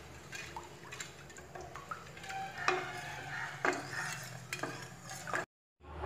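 A spoon stirring thick palm-flour and jaggery batter in a stainless steel pot, scraping around the pan with a few sharper knocks against its side, over a low steady hum. The batter is starting to thicken. The sound cuts out for a moment near the end.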